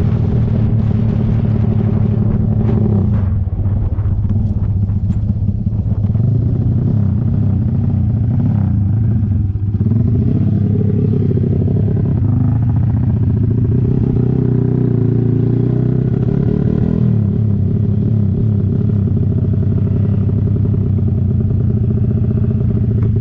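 Motorcycle engine running at a fairly steady speed. Its note shifts slightly a few times, around 3, 10 and 17 seconds in.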